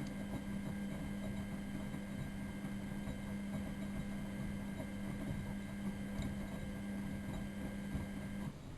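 Miele Novotronic W914 washing machine running a boil wash, its motor giving a steady hum that cuts off abruptly near the end.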